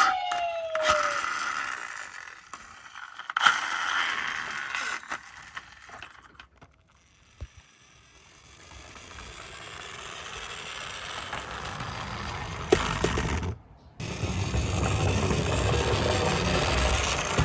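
Small toy cars being handled and rolled: plastic and die-cast parts scraping and rattling, with a few sharp clicks. It goes quiet for a moment in the middle, then builds to a louder rolling rattle near the end.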